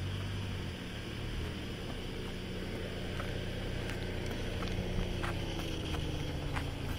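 2024 Toyota Land Cruiser Prado's engine running low and steady as the SUV crawls slowly over sandstone, its note easing down gradually through the second half. Scattered sharp ticks and clicks of the tyres on rock and grit.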